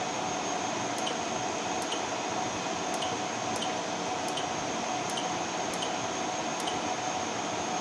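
Fire alarm control panel keypad giving a short faint click-beep about every 0.7 seconds as the keys are pressed to scroll through loop devices, over a steady fan-like hum.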